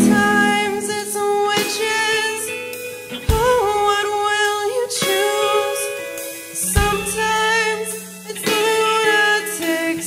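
A band playing with a woman singing long held notes, her pitch sliding between some of them; the music starts afresh sharply twice.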